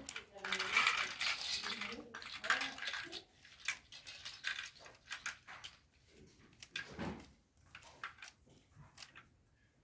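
Plastic Rubik's cube being turned rapidly by hand: an irregular run of clicks and rattles as the layers snap round, with a heavier thump about seven seconds in.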